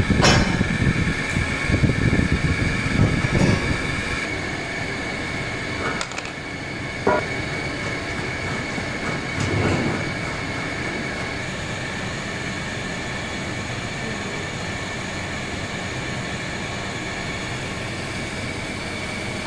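Steady mechanical background hum with a constant high whine, rumbling more heavily in the first few seconds, with a few light clicks later on.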